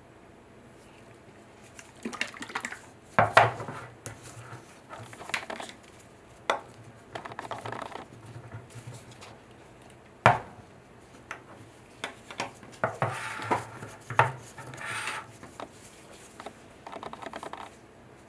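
Handling of a metal tin of metal polish: scattered metallic clicks and clinks, with two sharp knocks about three seconds and ten seconds in, among scraping rubs of a polishing block against the tin and a hard resin piece.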